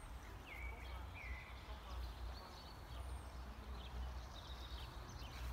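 Birds chirping in the garden: two short whistled notes about a second in, then scattered higher chirps, over a low rumble of wind on the microphone.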